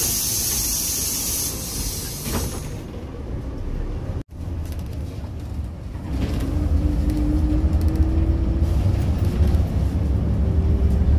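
City bus: a loud hiss of air as the door works, then, after a brief dropout, the engine pulling away with a low rumble and a rising whine.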